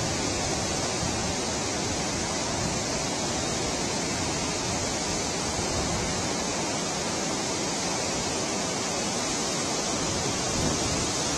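Water rushing steadily through the open spillway gates of a dam, a constant unbroken noise. The gates are releasing the high water built up by heavy rain.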